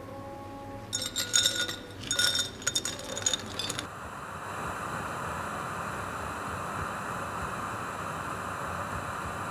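Glassware clinking several times over about three seconds, each clink ringing briefly. This gives way abruptly to a steady hiss.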